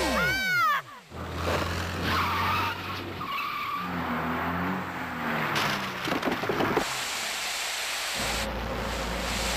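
Cartoon sound effect of a sled speeding and skidding over snow: a steady rushing, scraping noise that opens with a few quick falling whistle-like glides.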